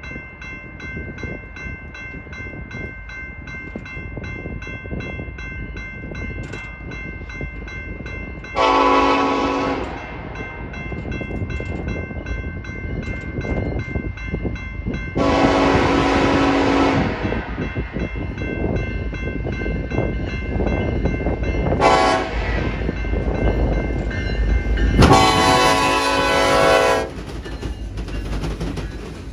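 Horn of an approaching BNSF EMD SD70ACe freight locomotive sounding the grade-crossing signal: two long blasts, a short one, then a final long one. A crossing bell rings steadily under the first part, and the rumble of the train builds as it nears.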